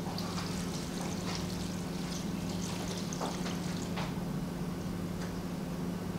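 Salt water poured from a glass jug into a stainless steel bowl of shredded vegetables, a steady uneven trickle of liquid that brines the vegetables for kimchi, over a steady low hum.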